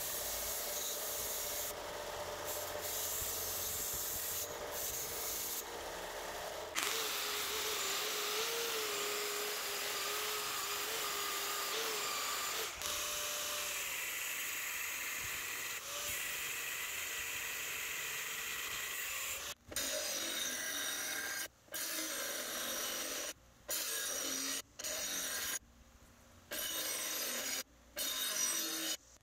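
Power tools grinding steel in a run of short takes: a bench-top belt-and-disc combination sander, then an angle grinder cutting steel plate clamped in a vise, with sparks flying, then a bench grinder. The grinding is continuous for about the first twenty seconds, then comes in short stretches broken by brief gaps.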